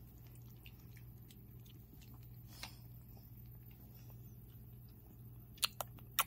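Chihuahua puppy chewing dry kibble: faint crunching clicks, then a quick run of sharper crunches near the end.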